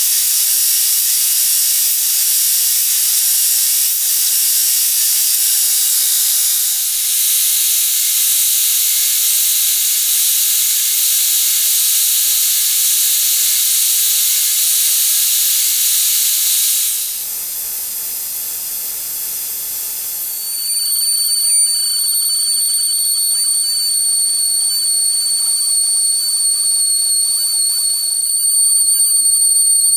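A belt grinder's abrasive belt grinds a steel knife blade with a loud, even hiss. Just past halfway the hiss stops, and a few seconds later a small handheld rotary tool with a sanding drum starts grinding the steel with a steady high-pitched whine.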